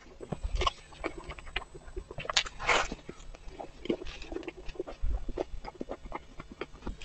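Mouth sounds of someone chewing and biting a soft, sauce-soaked bun with meat floss: wet smacking and many short clicks, with a few louder squelchy bites.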